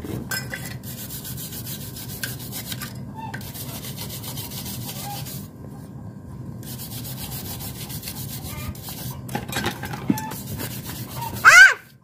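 Rapid back-and-forth scrubbing on an oil-crusted Suzuki RC100 motorcycle engine, a steady rasping rub broken by a few short pauses. Near the end, a child's voice cries out briefly and high-pitched.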